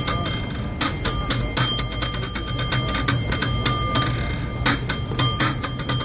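San Francisco cable car bell rung by hand with its pull cord as a contest routine: quick metal clangs in an uneven, rhythmic pattern, the bell's ringing tone hanging on between strikes.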